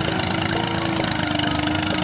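A small engine running steadily with a fast, even pulsing.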